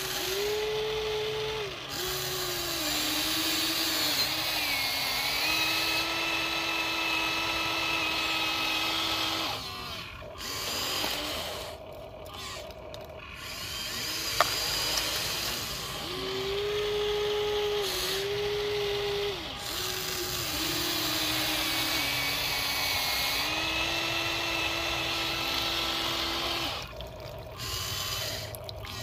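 Electric motors and gearboxes of a Huina remote-control toy excavator whining as the boom, arm and bucket move. The pitch steps up and down as each movement starts and stops, and the whine drops away for a few seconds around the middle before running again.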